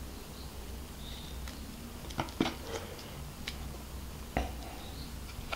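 A few short clicks and soft crinkles of a paper food wrapper being handled, over a low steady hum.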